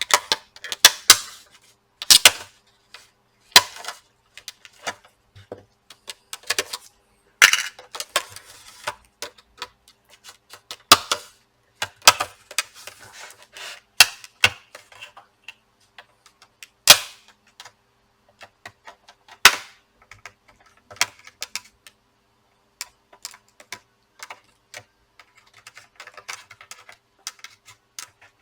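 Sharp, irregular plastic clicks and snaps as a laptop's plastic back cover is pried loose with a thin tool, its clips popping free one at a time.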